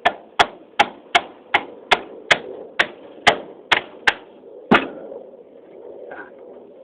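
Hammer blows on a ceiling fan motor being broken apart for scrap: about a dozen sharp strikes, roughly two and a half a second, the last one, near the five-second mark, the heaviest.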